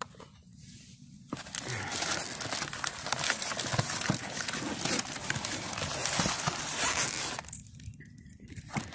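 Cardboard and packing paper rustling and crinkling as a hand digs through an opened shipping box, starting about a second in and dying down near the end.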